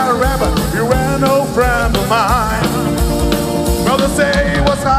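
Live rock-and-roll band playing, the drum kit keeping a steady beat under a lead line that bends up and down in pitch.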